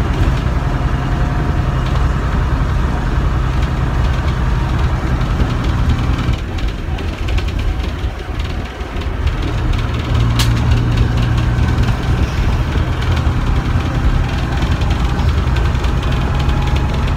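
Bristol RELL6L bus's Leyland O.680 six-cylinder diesel heard from inside the passenger saloon, pulling steadily under load. About six seconds in it falls away for some three seconds as the throttle eases, then picks up again and pulls harder, with a single sharp click about ten seconds in.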